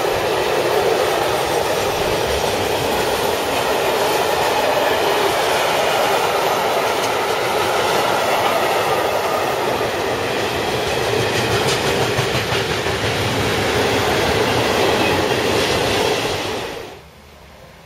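Freight train of tank wagons and open box wagons rolling past close by, its wheels running on the rails in a steady loud noise that cuts off suddenly about a second before the end.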